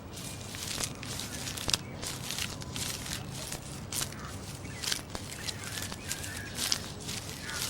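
Irregular crunching and crackling, many short sharp sounds at uneven intervals, with faint chirps in the background near the end.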